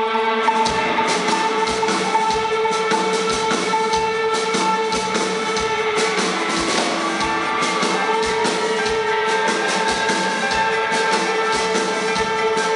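Live rock band playing: a steady drum beat under sustained, held tones.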